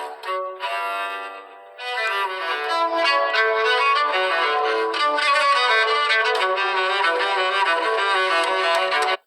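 LG mobile phone ringtone: an instrumental melody that dips briefly, then comes back fuller about two seconds in and cuts off abruptly at the end.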